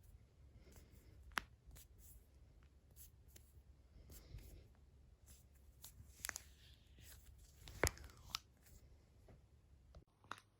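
Human joints being cracked by hand: a handful of sharp single pops, the loudest about two-thirds of the way through, between soft rustling of hands moving over skin and clothing.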